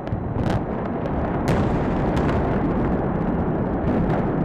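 Explosive demolition charges going off in a rapid string as the Georgia Dome implosion begins. There is a continuous heavy rumble with sharper cracks about half a second, a second and a half, two seconds and four seconds in.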